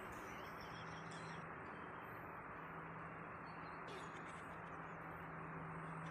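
Quiet recording background: a steady hiss with a low hum, and a few faint high chirps.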